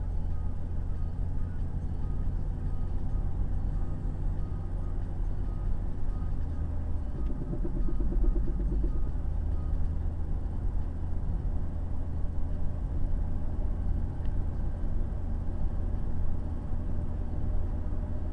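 Ford Mondeo Mk3 on the move: steady low road and drivetrain rumble, with a short patch of fast regular rattling about seven to nine seconds in. The car is being recorded for a knock that it makes while driving.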